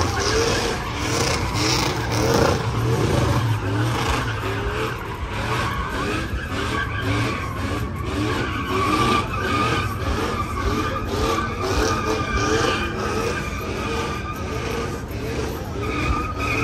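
A truck doing a burnout: its tires squeal steadily over the running engine, the sound pulsing in a quick, even rhythm.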